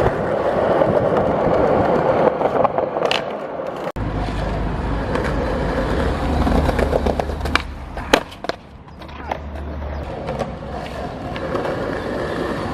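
Skateboard wheels rolling on a hard surface, with sharp clacks of the board hitting the ground about three seconds in and again around seven and eight seconds in. About four seconds in the sound cuts abruptly, and a low rumble runs under the rolling for about six seconds.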